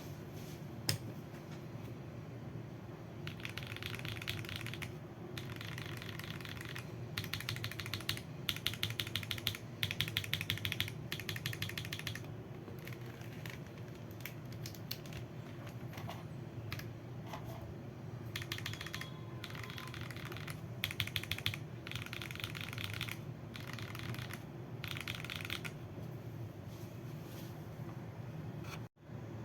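Typing on a mechanical keyboard with lubed Akko switches and PBT keycaps. The fast key clicks come in several bursts of a second or two, with pauses between, over a steady low hum.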